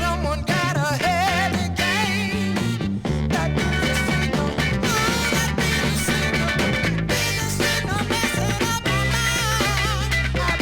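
Soul record playing, with a bass line and a steady drum beat under a wavering melodic lead.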